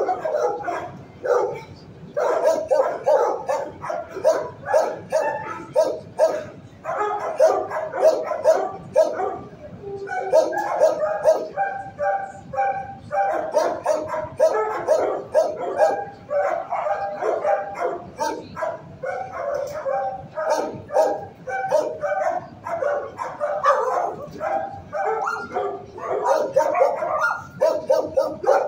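Shelter dogs barking over and over, many barks overlapping with some yips, almost without pause.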